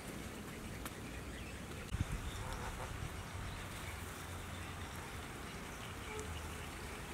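Outdoor ambience of insects buzzing steadily, with a few brief low knocks about two seconds in.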